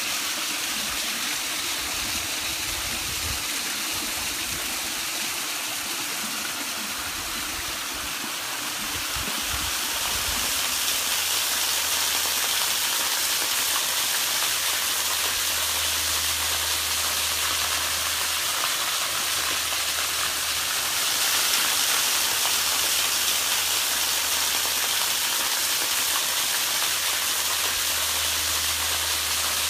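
Water rushing over rocks in a small mountain creek, then a thin waterfall pouring and splashing into a shallow pool, a steady rushing hiss. It grows a little louder and brighter about ten seconds in.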